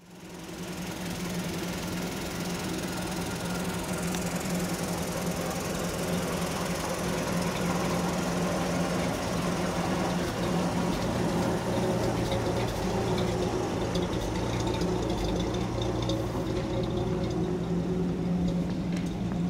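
Engines of a column of WW2 US army trucks idling, a steady low running sound that fades in over the first second or so.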